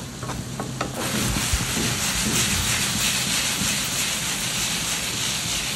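Chopped onions and tomatoes frying in butter in a pan over high heat, a steady sizzle that comes up about a second in. A few light spatula clicks against the pan come before it.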